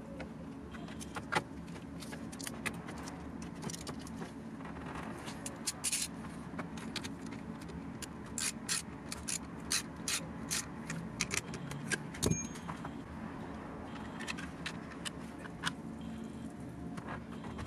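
Small clicks and light rattles of parts and hardware being handled and fitted in a car's boot, coming in scattered taps and thickest about halfway through, over a steady low hum.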